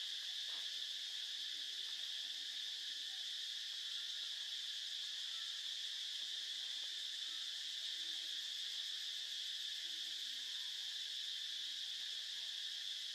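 Steady insect chorus: an unbroken, high-pitched buzzing that holds the same level.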